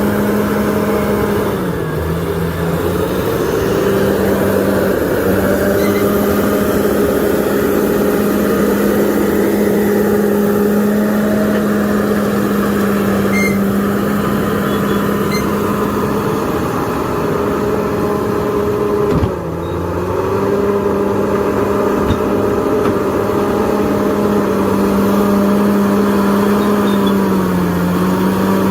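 Diesel engine of heavy earthmoving equipment running steadily. Its pitch sags briefly under load about two seconds in and again near the end, and a short knock with a dip in the engine comes about two-thirds of the way through.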